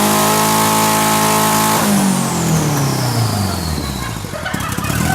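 Mazda four-cylinder engine fitted with four small K03 turbochargers, held at steady high revs under power. About two seconds in the revs fall away, and a high whistle drops steadily in pitch as the throttle is lifted. Near the end there is a patter of clicks.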